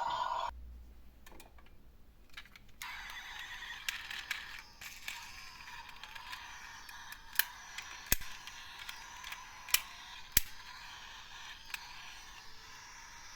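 A toy emergency-vehicle siren cuts off just after the start. After a short quiet gap, toy minicars rolling on a slope give a faint steady rolling hiss with a scatter of sharp clacks, four louder ones in the second half.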